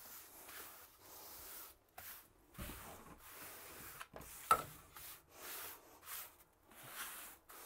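Hand trowel scraping and smoothing a wet mortar bed on a subfloor, in irregular rubbing strokes. A single sharp knock about four and a half seconds in.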